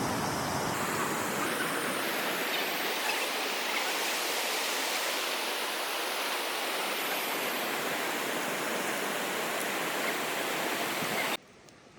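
Rushing stream water: a steady, even noise that cuts off suddenly near the end.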